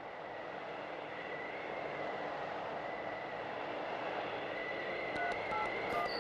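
A bus rumbling in, its steady noise growing louder as it rolls up, with a faint wavering whistle over it. About five seconds in, a run of short electronic beeps with small clicks starts, like a mobile phone being keyed.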